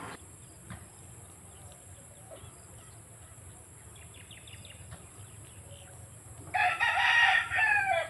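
A rooster crows once, loud, starting about six and a half seconds in: one long call that falls in pitch at its end. Before it, a quiet rural background with a few faint small-bird chirps.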